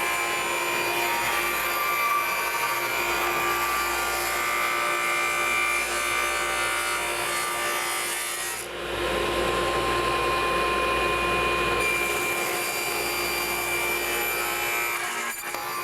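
Power saw running and cutting a piece of wood to length, a steady motor whine throughout, the sound changing for a few seconds about midway.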